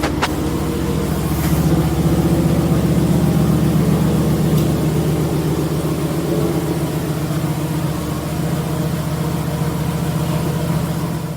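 Subaru STI flat-four boxer engine idling steadily through a Tomei aftermarket exhaust that is leaking at its joints, the note swelling slightly about two seconds in.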